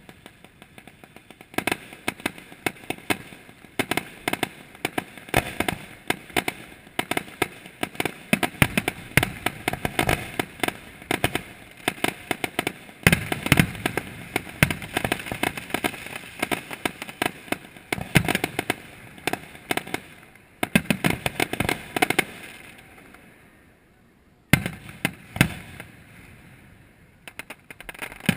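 Fireworks display: a rapid, dense series of bangs and crackles, with a short lull near the end followed by a few more reports.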